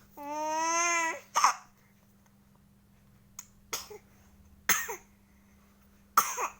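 A baby lets out one long, steady squeal, then coughs in short sharp bursts, about four times over the next few seconds. The coughing comes from laughing hard.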